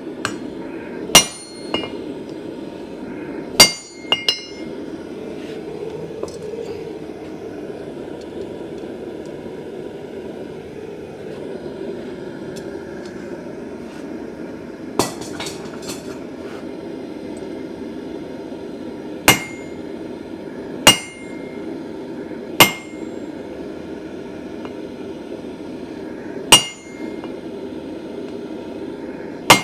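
Blacksmith's hammer striking steel on an anvil, single blows spaced irregularly a few seconds apart, each with a short metallic ring, over a steady rushing noise.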